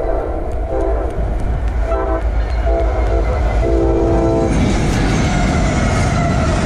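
Norfolk Southern freight locomotive's air horn blowing several blasts for a grade crossing, the last one longer and ending about four and a half seconds in. Then the lead locomotives pass close by with a loud rumble of engines and wheels on the rails.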